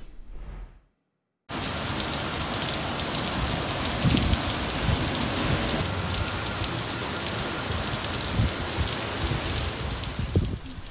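A short whoosh fades out, then after a moment's silence heavy rain comes pouring down steadily with high winds, the gusts now and then buffeting the microphone.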